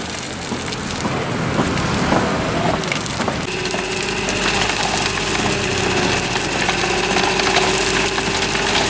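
Dump truck unloading fill earth: soil and stones sliding and tumbling out of the back with a crackling clatter, over the truck's running engine. About a third of the way through, a steady whine sets in and holds as the hydraulic hoist raises the bed.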